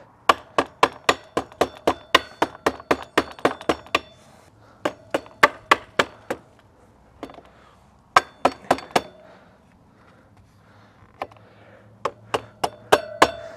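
Rubber mallet tapping a motorcycle's front axle through the wheel hub and fork: quick runs of sharp strikes, about five a second, each with a short metallic ring, with pauses between the runs. This is the axle being driven home, with some shimmying to line it up.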